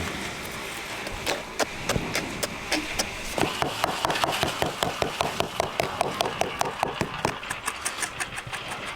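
A quick, irregular run of sharp taps and knocks, a few at first and then several a second from about three seconds in, over a steady low hiss.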